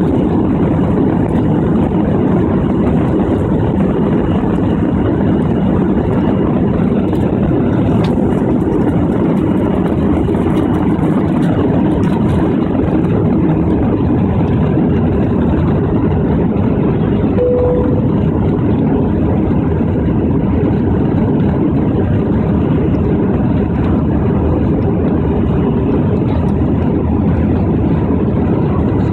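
Jet airliner engines at takeoff thrust, heard from inside the cabin over the wing. A steady, loud rush of engine and air noise runs through the takeoff roll, liftoff and first climb. A brief single tone sounds about two-thirds of the way through.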